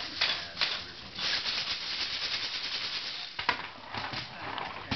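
A plastic ride-on toy fire truck rattling: a few knocks, then a steady clatter for about two seconds, then a sharp knock.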